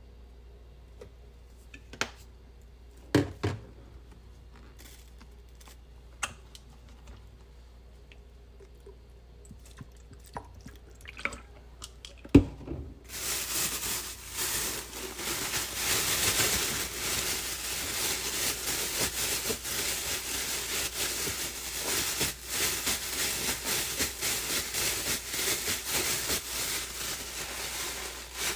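Thin plastic food bag holding sliced green peppers, sesame and dashi, crinkling and rustling steadily as it is shaken and then kneaded by hand, starting a little before halfway in. Before that there are only a few sharp knocks, the loudest just before the rustling begins.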